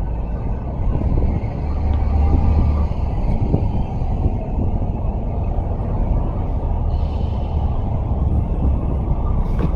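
Wind buffeting the microphone: a loud, low, fluctuating rumble, a little stronger about two seconds in.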